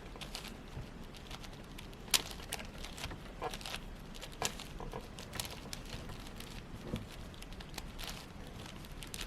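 6x6 Rubik's cube being turned by hand, its plastic layers giving scattered, irregular clicks, the sharpest one about two seconds in.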